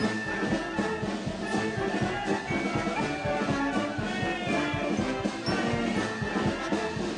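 Chilean Army concert band playing a piece with brass and a steady drum beat.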